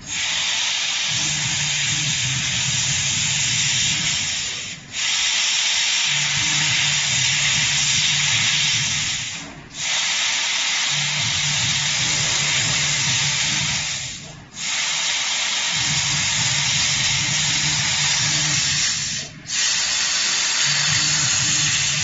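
A 300 W CO2 laser cutting machine cutting 1.2 mm stainless steel sheet. It makes a steady hiss at the cutting head, with a low hum beneath. The hiss breaks off briefly four times, about every five seconds.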